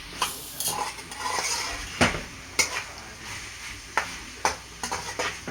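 Chicken with onion, pepper and carrots sizzling as it is stirred in a pot on high heat, the spoon knocking against the pot several times.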